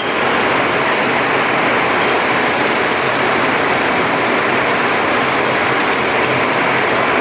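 Heavy rain falling, a steady dense hiss with no let-up.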